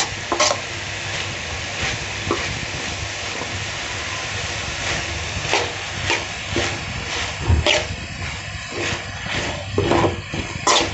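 Chopped onions and tomatoes sizzling in hot oil in a pan as they are stirred and sautéed, with the spoon scraping and knocking against the pan at irregular moments.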